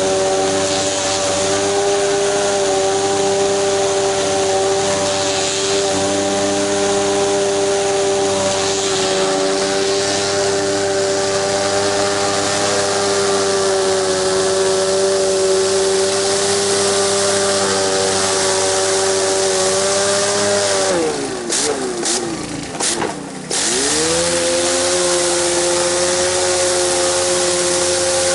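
Gas pressure washer running steadily with the hiss of high-pressure water spray. About 21 seconds in, the spray cuts out for a couple of seconds while the engine's pitch dips sharply. By about 24 seconds the engine is back at speed with the spray running.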